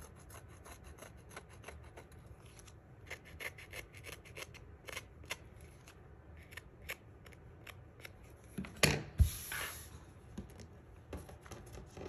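Small paper snips making many quick little cuts along the edge of cardstock, roughing it up so that it looks jagged. A louder knock with a short rustle comes about nine seconds in.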